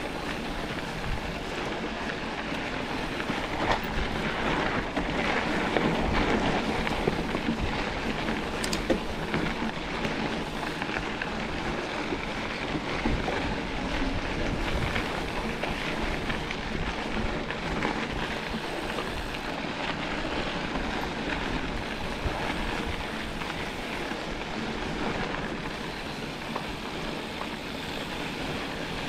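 Mountain bike riding over a dirt trail: a steady rush of wind on the microphone with tyres crunching over the dirt and gravel, and a few sharper clicks and knocks from the bike.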